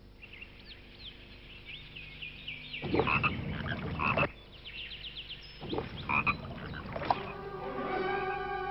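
Frogs croaking in a chorus of short chirps, with two louder, longer croaks about three and six seconds in. Steady held tones fade in near the end.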